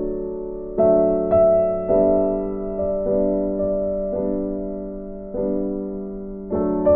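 Background music: a keyboard in a piano or electric piano sound playing slow chords, each struck and then fading.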